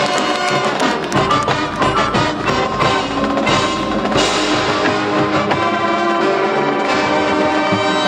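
Marching band playing: brass over drums and the front ensemble's mallet percussion, getting brighter about halfway through.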